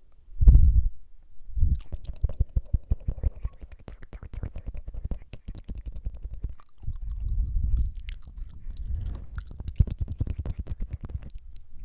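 Close-miked ASMR mouth sounds: rapid, wet tongue fluttering and clicking, with a loud burst about half a second in.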